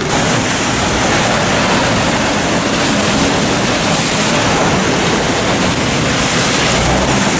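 Heavy rain and traffic on a waterlogged road: a steady wash of noise, with tyres hissing through standing water as cars pass, brightest about four seconds in. A low rumble comes in near the end.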